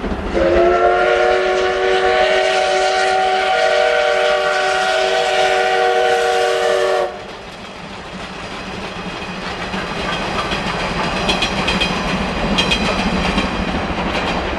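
Steam locomotive's whistle sounding one long chord of several notes for about six and a half seconds, then cutting off sharply. The steam train then passes, its running sound growing louder, with rhythmic clicking of wheels over rail joints near the end.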